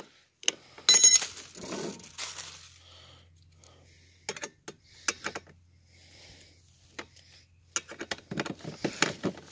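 Metal open-end wrench clicking and clinking on the bolts of a pedal car's plastic chain guard as they are tightened. There is a ringing metallic clink about a second in, then scattered bursts of small clicks.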